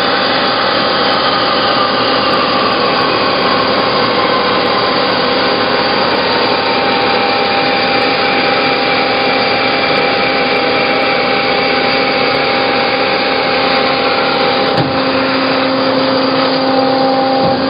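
Hyd-Mech H-16 automatic horizontal bandsaw running under hydraulic control, its band blade cutting through bar stock with a steady mechanical whine. Near the end the pitch of the running changes suddenly.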